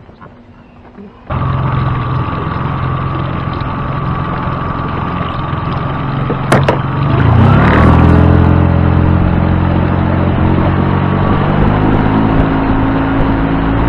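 Boat outboard motor starting about a second in and running steadily. A sharp click comes about six and a half seconds in, then the engine revs up and holds a higher, steady note as the boat gets under way.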